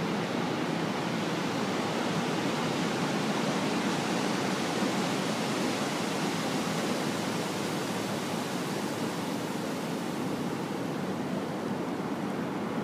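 Ocean surf breaking in long lines off a flat beach: a steady, continuous wash of wave noise that swells slightly around the middle.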